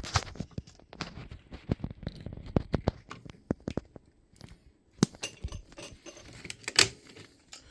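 Hard plastic being handled and worked on: an irregular run of clicks, scratches and small knocks from a battered smoke alarm, with two sharper clicks about five seconds in and near the end.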